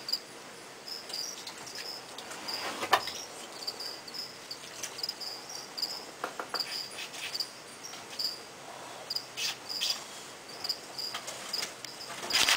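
A cricket chirping in short, high, repeated chirps, with a few sharp clicks and a louder knock near the end.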